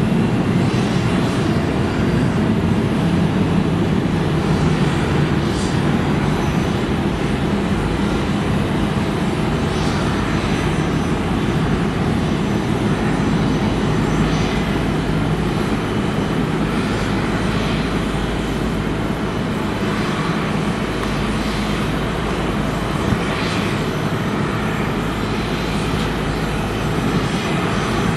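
Steady jet aircraft engine noise: an unbroken low rumble with a hiss over it.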